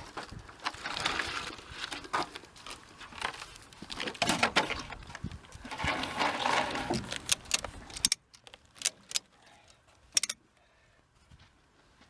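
Sawmill scrap boards being stacked into a truck bed, clattering, knocking and scraping against each other. There are many sharp knocks for about eight seconds, then the sound drops off suddenly to a few faint knocks.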